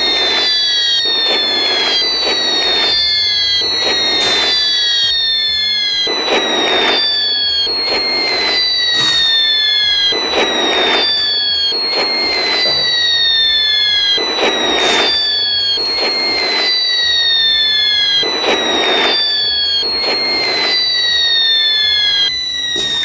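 Battle sound effect of a bombardment: falling whistles one after another, each ending in an explosion, about one every two seconds.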